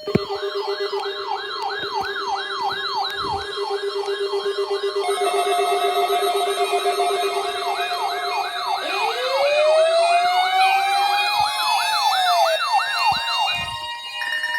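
Several electronic siren sounds layered together: a fast repeating sweep about three times a second over steady tones, with more layers joining about five seconds in and a rising wail and more sweeps from about nine seconds.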